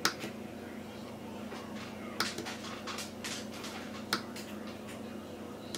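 A series of small sharp clicks and taps from the plastic case and buttons of a Browey 300 portable power station being handled, over a faint steady hum.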